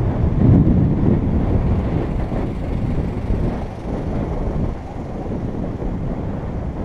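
Steady low rumble of wind buffeting the microphone and road noise from a bicycle riding along a paved road, swelling briefly about half a second in.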